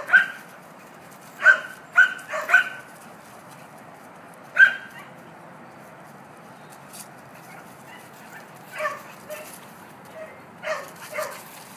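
Dogs play-fighting, giving short sharp play barks: a quick run of about five barks in the first three seconds, a single louder bark about four and a half seconds in, then quieter barks and yips near the end.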